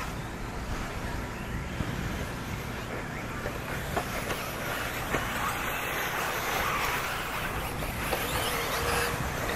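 1/8-scale electric off-road RC buggies running on a dirt track: a steady motor and tyre running noise with a few faint knocks.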